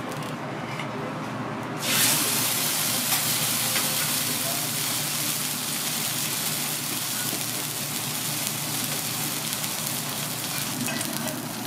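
Thick Kobe beef steak sizzling on a hot steel teppanyaki griddle. The sizzle starts suddenly about two seconds in and then runs on steadily.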